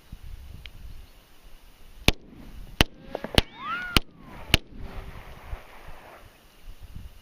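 A Glock 17 9mm pistol fired five times in steady succession, about 0.6 s apart, with a brief falling whine between the middle shots.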